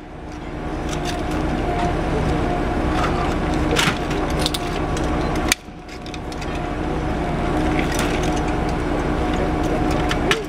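A steady idling engine drone, with scattered sharp cracks and crunches as the wrecked car's crushed front-end parts are handled. The sound drops out briefly about halfway through.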